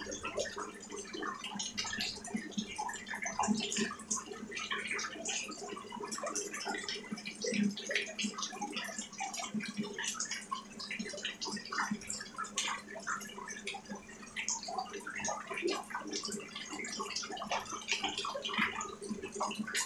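Rain falling on a wet surface and standing water: a dense, irregular patter of drops splashing, over a low steady hum.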